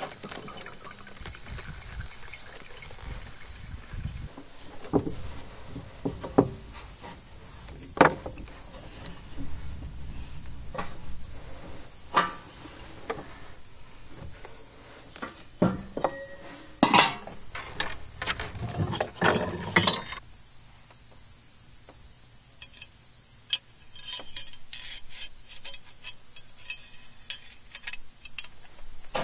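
Enamelware coffee pot and metal utensils being handled on a wooden table: a dozen or so separate clinks and knocks, spaced irregularly, over a steady high insect drone.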